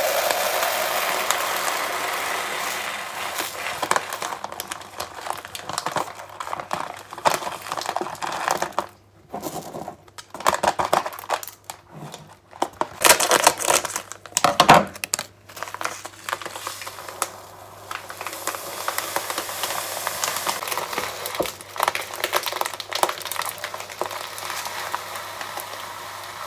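Dry rice poured from its bag into a plastic storage container, a steady hiss at first. Then crinkling and rustling of plastic and paper grain packets as they are handled and opened, loudest in the middle. Near the end, millet runs from a plastic bag into a container with another steady pour.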